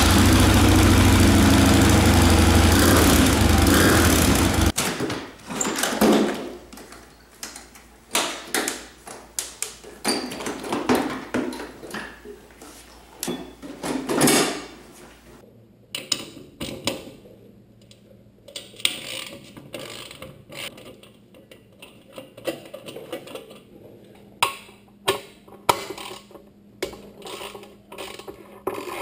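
Harley-Davidson Road King's V-twin idles steadily through its stock exhaust for about five seconds, then shuts off. Scattered clicks and knocks of handling follow, and near the end a ratchet wrench clicks on the exhaust clamp.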